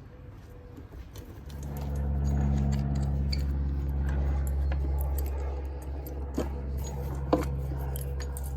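A steady low machine hum comes on about a second and a half in and keeps going, with a couple of sharp metallic clicks near the end.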